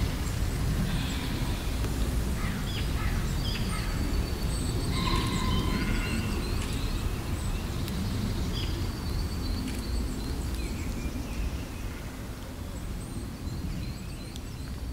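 Outdoor ambience of scattered bird chirps and short calls over a steady low rumble, fading down over the last few seconds.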